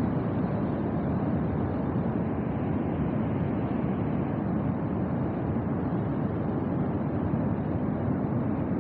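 Steady, low rush of a muddy river in flash flood, the water running fast and unbroken.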